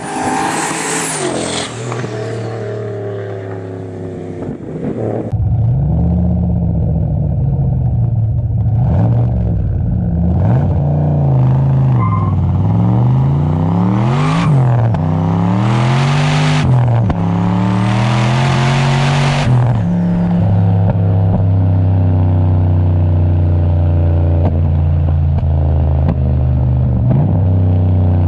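Turbocharged LS1 V8 car engine. It sweeps down in pitch in the first two seconds, then is revved up and down repeatedly with three bursts of hiss. From about two-thirds of the way in it settles into a steady idle.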